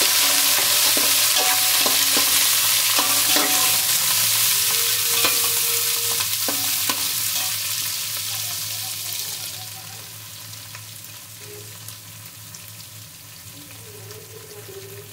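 Sliced onions sizzling loudly in hot oil in a large aluminium pot, with a few knocks and scrapes of a slotted steel spoon against the pot as they are stirred. The sizzle dies down to a quieter fry about ten seconds in.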